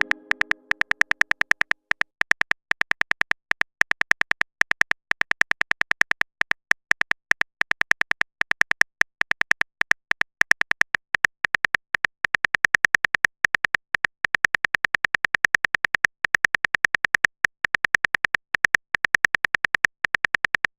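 Phone keyboard typing sound effect: rapid short clicks, several a second, coming in runs with brief pauses.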